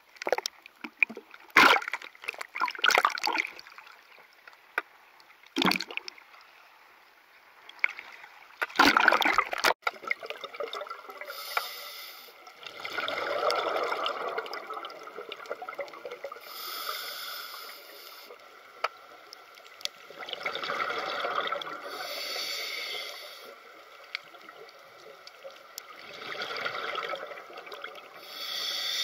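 Small waves slapping and splashing against the camera at the water surface, a handful of sharp splashes. About ten seconds in it gives way to underwater sound: slow swells of bubbling alternating with a higher hiss every few seconds, typical of a scuba diver's regulator breathing.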